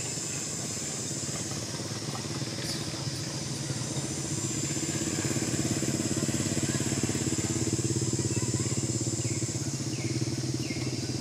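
Engine running steadily nearby, growing louder about four seconds in and easing off near the end, over a steady high-pitched buzz.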